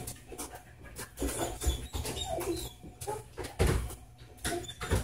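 Dog whining in short high notes, with a few sharp clicks and knocks between them; the loudest knock comes about three and a half seconds in.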